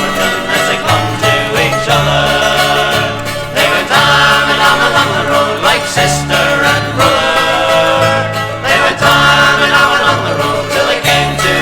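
Bluegrass band playing an instrumental passage, banjo and guitar over a bass line that changes note every second or so.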